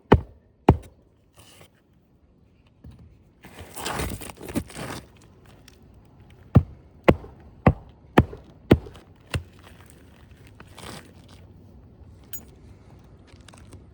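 Sharp hammer blows on an asphalt shingle roof, about two a second, in two runs: a pair at the start and six in a row about halfway through. Between them comes a stretch of scraping and tearing as a shingle is pried up and its sealed strip broken.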